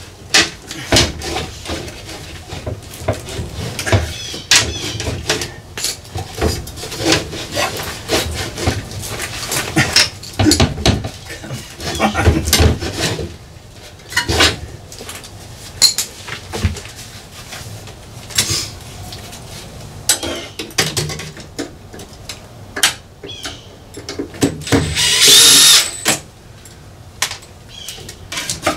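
Knocks and clatter of a heavy inverter unit being handled and fitted against the steel wall of an equipment bay. Near the end a cordless power drill runs once with a whine for about a second and a half.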